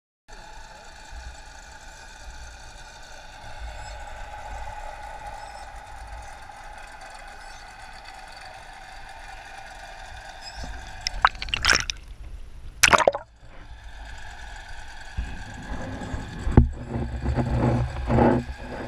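Underwater ambience picked up by a submerged camera: a steady muffled hiss with a held hum. A little past the middle come two sharp knocks, and near the end there are bursts of low rumbling.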